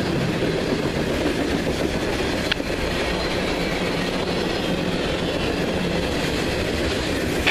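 Freight train cars rolling past: a steady rumble and clatter of steel wheels on the rails, with one brief sharp sound about two and a half seconds in.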